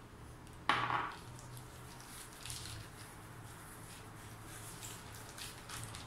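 A single sharp knock about a second in, as a small spice jar is set down on the worktop. Soft rustling and rubbing follow as hands move over puff pastry laid on plastic film and baking paper.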